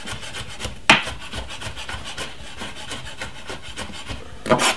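Chef's knife chopping garlic cloves on a wooden cutting board: a fast run of taps and scraping strokes, with a louder knock about a second in and a couple more near the end.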